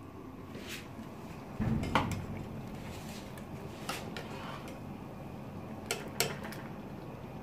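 A long metal ladle clinking and scraping against a stainless steel stockpot while stirring rice parboiling in boiling water, with several sharp clinks spread through and a louder low clatter about two seconds in.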